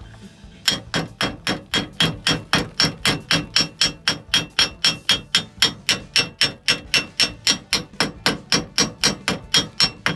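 Steady hammer blows on metal, about four strikes a second, each with a brief high ring.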